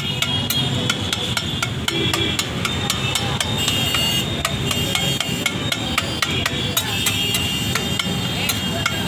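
A flat steel spatula tapping and scraping on a large iron tawa as tomato chaat is mashed and stirred on it: quick, irregular metallic clacks, several a second, in the 'tak tak' style of Indian street cooking.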